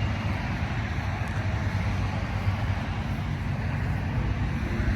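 Steady outdoor background rumble with a hiss above it and no distinct events.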